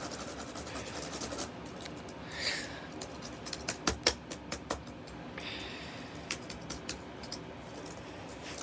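Chromebook laptop keys pressed by hand: scattered plastic key clicks, most of them bunched in the middle, with a couple of brief rubbing swishes of the hand moving over the keyboard.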